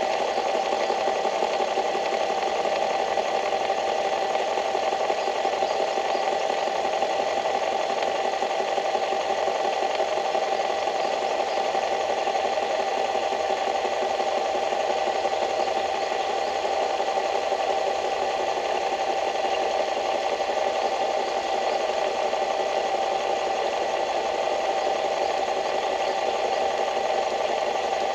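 A small engine running steadily at a constant speed, with a fast, even rattle.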